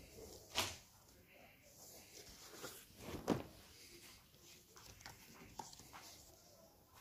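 Stiff sheets of natural leather offcuts being lifted and turned over by hand, rustling, with two sharp louder flaps of the hide, one just over half a second in and another about three seconds later.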